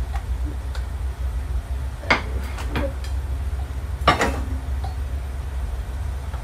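Clinks of metal cookware on a stove, two sharper ones about two seconds in and about four seconds in with a few lighter taps between, over a steady low hum.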